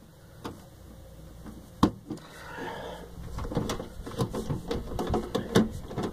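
Handling noises: a sharp knock about two seconds in, then a busy run of clicks, taps and rustling from about three and a half seconds on, as objects are moved about close to the microphone.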